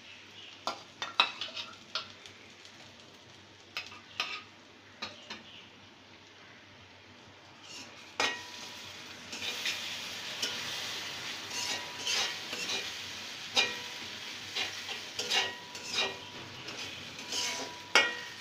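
A spoon scraping and clicking in a metal pot of fried masala paste. About eight seconds in, the frying sizzle grows louder and denser as sour yogurt is added to the hot oil and stirred through.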